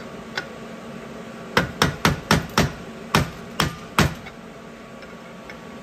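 Hammer striking a steel punch held against a differential part clamped in a vise, driving out a stubborn piece. Eight sharp metal strikes at an uneven pace, starting about a second and a half in and lasting about two and a half seconds.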